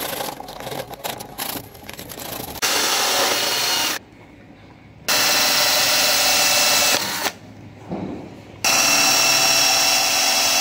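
A hacksaw rasps through PVC conduit in a few short strokes. Then a cordless drill with a hole saw bores through a plastic switch box in three steady bursts with short pauses between them.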